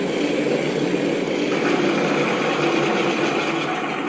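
Simulated piston-engine idle played by the onboard sound cards of an electric radio-control B-25 model, running steadily at a low setting.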